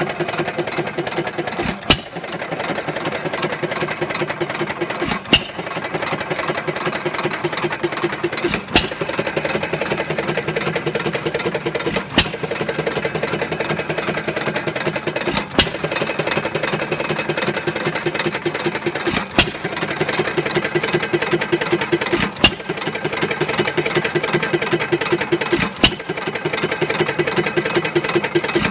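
1919 Jaeger hit-and-miss engine running under light load, firing with a sharp bang about every three and a half seconds and coasting on its flywheels between firings with a steady mechanical clatter. It is belted to a hand-crank-style ice cream freezer that it turns.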